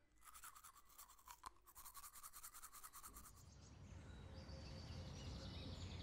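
Teeth being brushed with a toothbrush: rapid back-and-forth scrubbing strokes for about three seconds. The strokes then stop, leaving a faint low hum.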